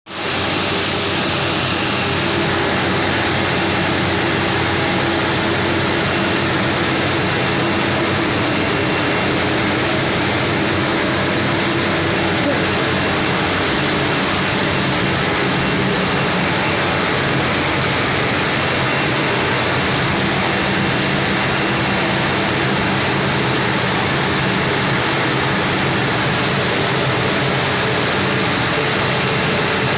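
Stick (arc) welding: a steady crackling hiss from the electrode arc that runs without a break, over a low steady hum.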